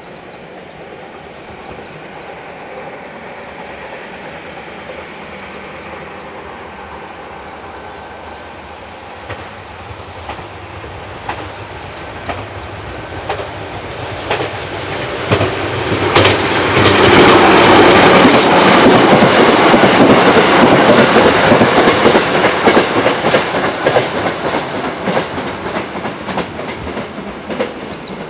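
JR West 221 series electric multiple unit approaching and passing at speed, its wheels clacking over the rail joints. It grows steadily louder, is loudest about two-thirds of the way in, then fades away.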